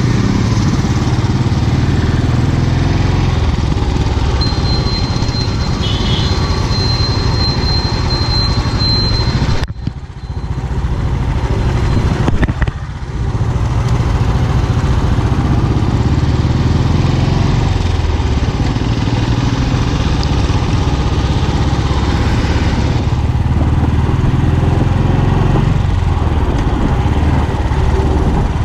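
Royal Enfield single-cylinder motorcycle engine and exhaust running under way as the bike pulls off and rides along, its sound dipping briefly twice, about ten and thirteen seconds in.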